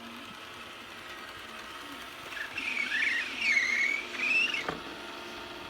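A pet's high-pitched, wavering whine or squeal, rising and falling in pitch for about two seconds in the middle, over the steady hum of a running robot vacuum.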